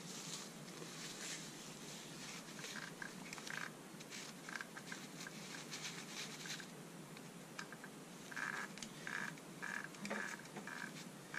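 Faint handling sounds of a cloth wipe: it is opened out, then rubbed in short repeated scrubbing strokes over a glass gobo inside a moving-head light fixture. The strokes are most distinct near the end.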